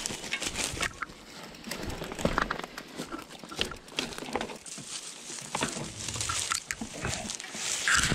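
Mountain bike going down rough, debris-strewn ground: a busy, irregular run of crunches, clicks and rattles from tyres, frame and loose debris.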